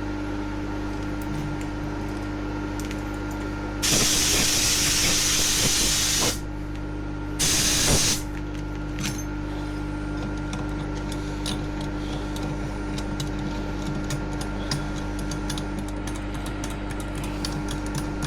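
Compressed-air blow gun blasting debris out of a freshly cleared bolt hole in two bursts, a long one about four seconds in and a short one about two seconds later, over a steady machine hum. Light ticks and clicks follow.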